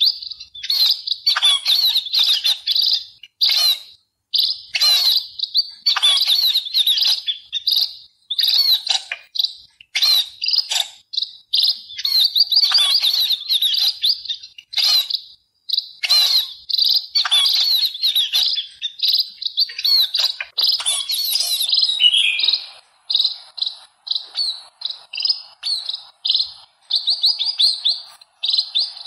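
Sparrows chirping: rapid strings of short, high chirps, many overlapping. Near the end the chirping settles into a more even series of separate chirps, two or three a second.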